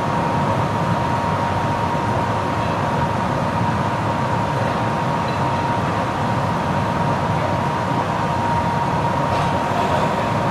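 A steady machine noise from a running small motor, with a constant high whine over an even rushing hiss.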